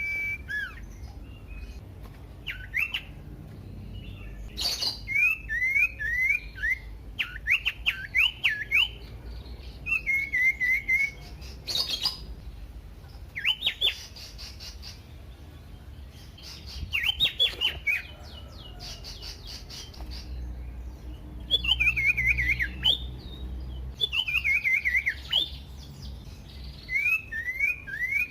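Common iora singing loud, varied phrases of quick whistled notes, some sliding upward and some in fast falling runs, with short pauses between phrases. A couple of sharp clicks come through, over a steady low hum.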